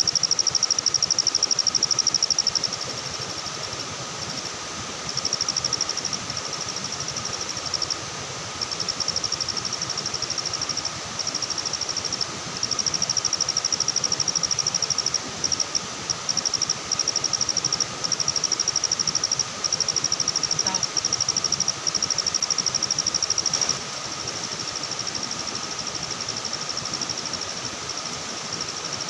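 Night insects trilling: a high, rapidly pulsed trill that runs in bouts of a few seconds, breaking off and starting again, over a fainter steady lower drone.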